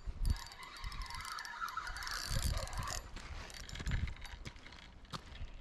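Spinning reel being cranked to reel in line, its gears whirring until about three seconds in, followed by a few footsteps on river gravel.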